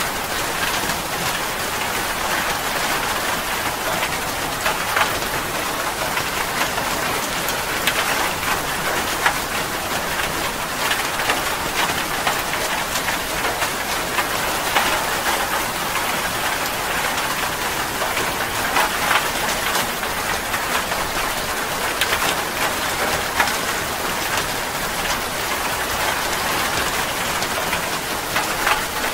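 Steady heavy rain: a constant hiss of falling rain with close drops tapping sharply now and then.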